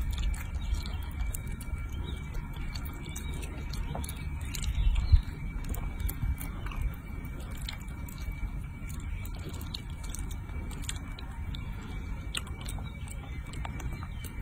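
Baby macaque chewing and smacking on a soft roasted sweet potato: many small wet clicks of mouth sounds, over a low rumble that swells briefly about five seconds in.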